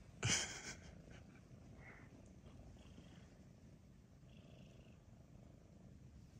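Grey-and-white domestic cat purring steadily and softly while its nose and chin are touched. A brief loud burst of noise cuts in just after the start.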